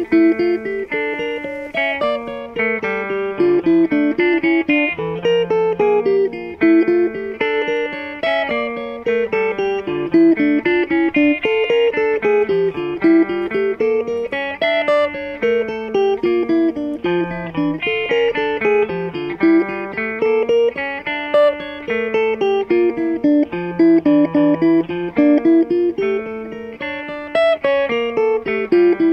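Guitars playing a picked line of single notes that steps down and back up, repeating every couple of seconds over held lower notes.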